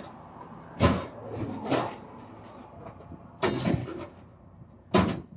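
A few sharp knocks and clunks, four in all, spaced irregularly over a few seconds, with faint rattling between them.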